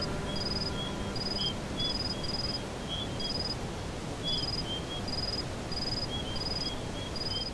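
Outdoor natural ambience: a short high chirp repeats evenly about twice a second, with softer, lower chirps scattered between, over a steady hiss. The last of a music chord dies away in the first second.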